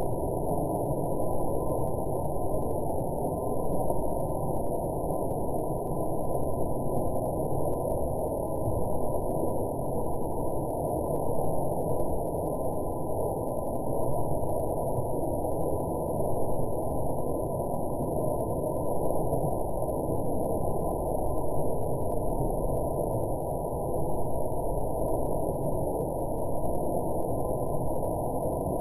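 Artificial waterfall pouring over a rock face into a pond: a steady, muffled rush of falling and splashing water.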